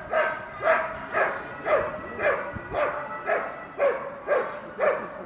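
A dog barking steadily and rhythmically, about two barks a second, ten or so in a row.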